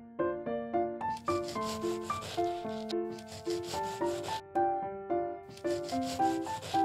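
Small knife sawing through a miniature sponge cake, a rasping scrape in three stretches of strokes, over background music with a simple melody.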